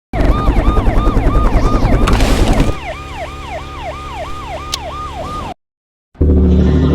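A siren in fast repeated yelp sweeps, about three a second, loud at first and then quieter, cutting off suddenly about five and a half seconds in. Loud music starts just before the end.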